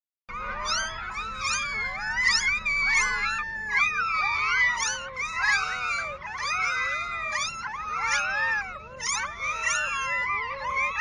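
A litter of newborn puppies squealing and whimpering all at once: many high, wavering cries overlapping one another, over a low steady rumble.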